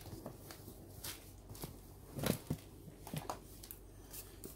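Packaging being handled: soft rustles and scattered light knocks of a cardboard box and a plastic-wrapped paper booklet, with one louder rustle a little past two seconds in.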